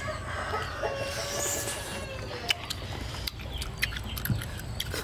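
Scattered sharp clicks of grilled snail shells being handled and eaten, most of them in the second half, with soft chewing.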